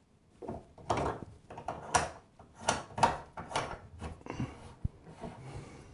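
Hands threading a metal retaining ring onto a shower diverter valve and snugging it hand-tight: a run of irregular short scrapes and rubs with a few sharper knocks.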